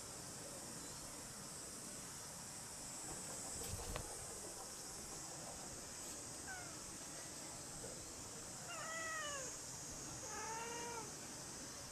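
Cats meowing: a few faint calls, then two clear meows about a second and a half apart near the end, each rising and then falling in pitch. A single sharp click sounds about four seconds in, over a steady high hiss.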